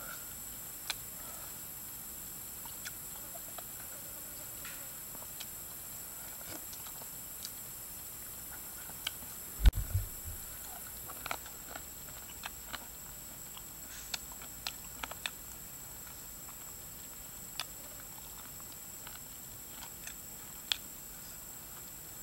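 A man eating: scattered small clicks and smacks of chewing and sipping soup from a spoon, with one dull thump about ten seconds in, over a steady high hiss.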